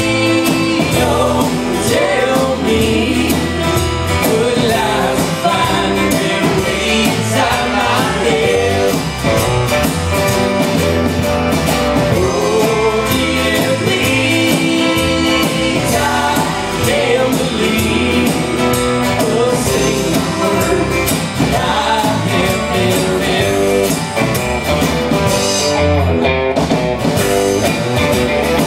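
Live rock band playing: drum kit, electric and acoustic guitars and keyboard, with a lead vocal singing over them.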